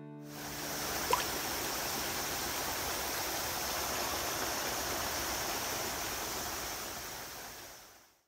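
River water rushing over rocks in shallow rapids, a steady hiss that fades in at the start and fades out near the end. A short, sharp sound about a second in stands out above the water.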